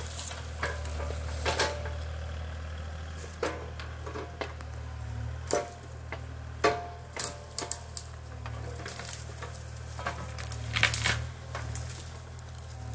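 Excavator engine running at a distance, a steady low drone, while brush and branches crackle and snap with scattered sharp cracks throughout.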